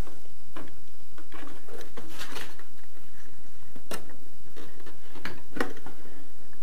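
Irregular light clicks and knocks of the plastic housing of a gas boiler's electrical control box being handled, with the strongest knocks about two seconds in and about four seconds in.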